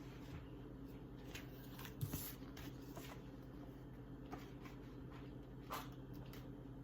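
Low steady hum with a few faint knocks and rustles, the clearest about two seconds in and again near the end.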